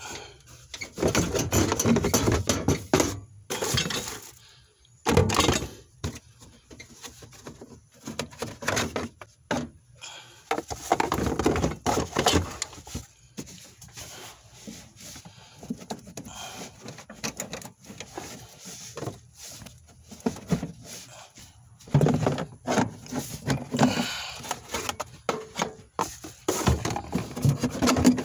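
Irregular bursts of clattering, knocking and scraping with quieter gaps between, as the plastic cooling-fan motor and its housing are worked loose and pulled off a hybrid battery pack.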